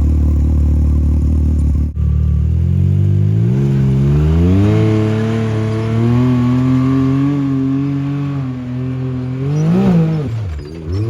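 Side-by-side UTV engine revving up: its pitch climbs over a few seconds and holds at high revs, then drops, with a quick rev blip near the end.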